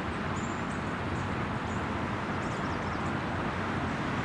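Steady outdoor background rumble, with faint high chirps scattered through it from swallows flying overhead.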